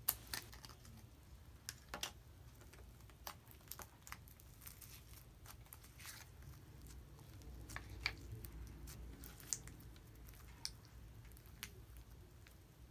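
Green jelly slime being squeezed out of a small plastic cup and stretched by hand, giving faint scattered clicks and sticky crackles. The loudest click comes just at the start, as the cup's plastic lid comes off.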